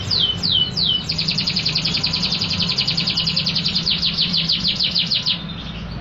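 Caged domestic canary singing loudly: three quick falling whistles, then a long fast trill of about ten notes a second that breaks off near the end.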